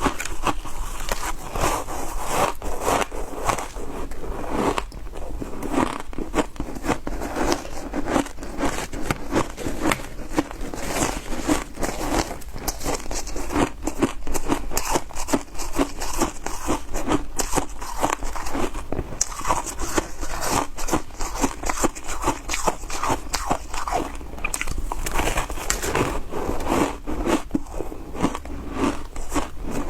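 A person biting and chewing ice: a dense, continuous run of rapid crunches and crackles.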